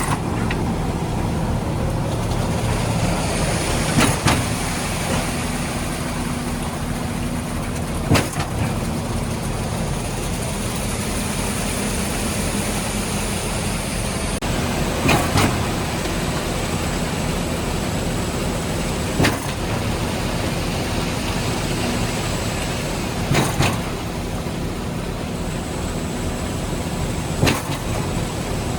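Concrete mixer truck's diesel engine running steadily, with a sharp clack about every four seconds.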